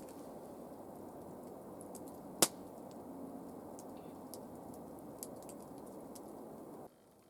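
A single sharp crack or knock, by far the loudest sound, about two and a half seconds in, over a steady low rushing noise with a few faint ticks; the noise cuts off abruptly near the end.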